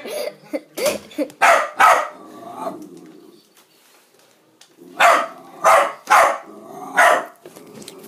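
Small terrier barking repeatedly in alarm at a vacuum cleaner it is scared of: a quick run of sharp barks, a pause of about two seconds, then four more barks.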